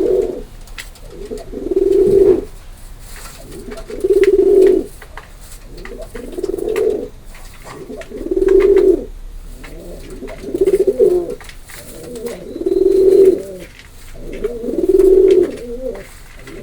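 Domestic pigeon cooing: a low, throaty coo repeated about every two seconds, around eight times in a steady rhythm.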